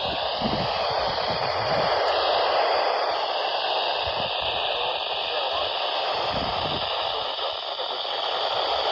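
Portable weather radio receiver hissing with static on a weak signal, faint wavering tones just audible under the noise, with scattered low thumps.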